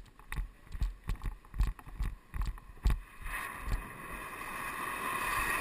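Irregular knocks and thumps on the microphone, then from about three seconds in a car drifting through a bend, its tyres squealing and growing steadily louder as it nears.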